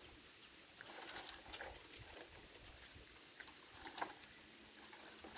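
Faint scattered knocks and crackles of cut bamboo poles shifting and rubbing against each other as they are pulled from a felled bamboo clump, with a sharper knock about four seconds in.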